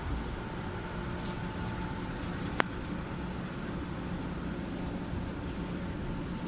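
Steady low hum inside a train carriage, with one sharp click about two and a half seconds in.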